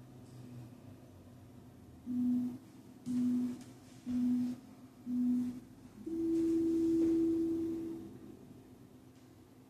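Workout interval timer beeping a countdown: four short, lower beeps about a second apart, then one longer, higher beep that signals the start of the next exercise.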